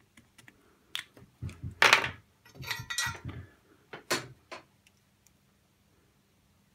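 Small tools being handled on a workbench: a flux dispensing pen is set down and a soldering iron picked up, making a handful of clicks, knocks and scrapes, the loudest about two seconds in. After that it goes quiet apart from a faint steady hum.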